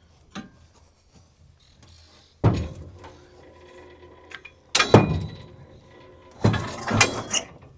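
Heavy metal parts being set down in a truck bed: three loud clanks roughly two seconds apart, each leaving a short metallic ring.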